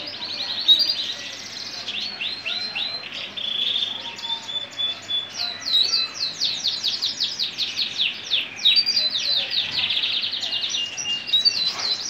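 Male Gibber Italicus canary singing a continuous song of fast trills, each made of rapidly repeated down-slurred notes, broken by short held whistled notes.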